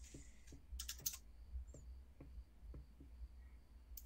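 Faint, scattered keystrokes on a computer keyboard: short clicks at irregular intervals, a few a second.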